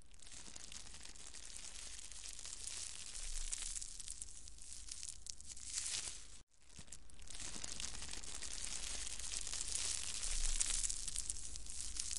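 Snail feeding on a clover flower, close-miked: dense, crackly crunching of its jaw and radula rasping the petals. The sound cuts out briefly about six seconds in and is a little louder in the second half.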